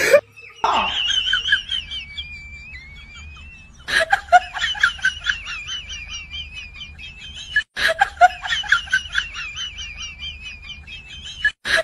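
A high-pitched, rapidly warbling chattering sound effect, several quick notes a second. It restarts with a sharp click about every four seconds, as an edited-in clip played over and over.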